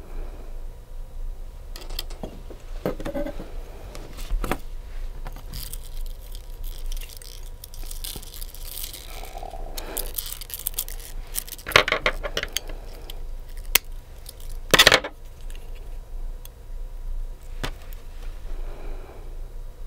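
Small clicks, taps and scrapes of nail art tools and bottles being handled close to the microphone, with sharp clinks about twelve and fifteen seconds in.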